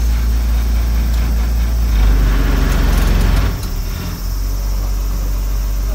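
Diesel engine of a narrow-gauge train running with a steady low hum as it moves slowly along the track, swelling louder about two seconds in and easing back about a second and a half later.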